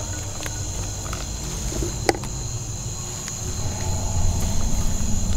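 Night insects, crickets, keep up a steady high-pitched chorus over a low rumble, with a single sharp click about two seconds in. A louder noisy sound builds in from about three and a half seconds.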